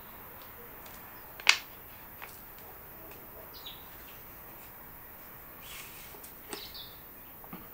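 Plastic spring clamps being squeezed open and snapped onto a glued stack of plywood layers. One sharp clack comes about a second and a half in, followed by several softer clicks and knocks of the clamps against the wood.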